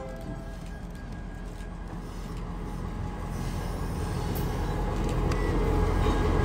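Norfolk Southern diesel locomotives rolling past close by, their engines rumbling deep and steady over wheel and rail noise, growing steadily louder as the lead units draw level.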